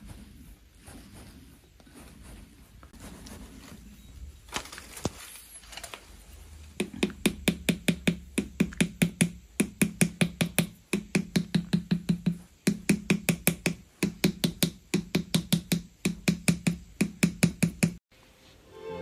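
Rapid, even tapping of a wooden tool against the clay body of a zisha teapot on a turntable, about three to four taps a second in runs with short breaks, starting about seven seconds in. Before that, only faint tool-on-clay sounds.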